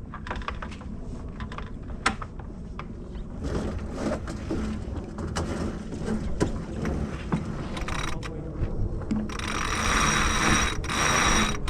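Sailboat sheet winch ratcheting with rapid clicks as the jib sheet is trimmed in during a tack. About nine seconds in a louder rushing sound with a steady high tone takes over until just before the end.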